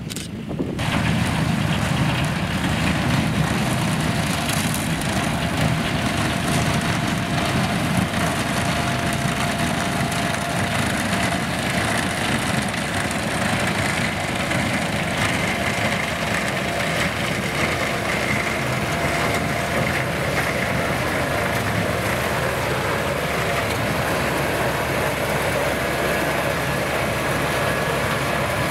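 Vervaet Beet Eater 617 self-propelled sugar beet harvester running steadily as it lifts beet, its engine and machinery giving a dense, even drone that comes up louder about a second in. A thin steady whine runs over it from a few seconds in.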